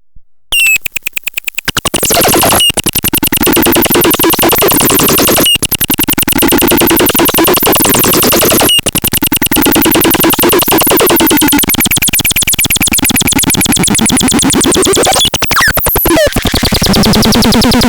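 Loud, buzzy electronic synthesizer sound pulsing very fast. It breaks off briefly about every three seconds and sweeps in pitch near the end.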